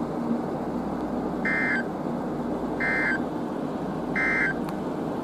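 NOAA Weather Radio EAS end-of-message data bursts: three short, identical buzzy screeches about a second apart, marking the end of the severe thunderstorm warning broadcast, over steady background hiss.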